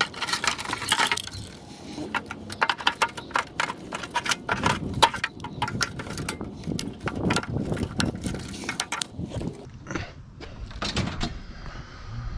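Hand tools clicking and rattling against metal screws and casing parts while an electric scooter's battery casing is taken apart: a quick run of small sharp clicks and knocks that thins out near the end.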